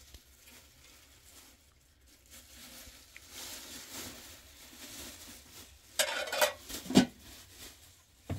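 Faint handling and movement noises, then a brief loud scraping or rustling clatter about six seconds in and a sharp knock about a second later.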